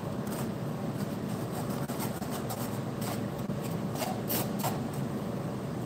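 Metal spoon scraping and stirring blended pomegranate pulp in a fine mesh strainer to press out the juice, with a few light scrapes and clicks. A steady low hum runs underneath.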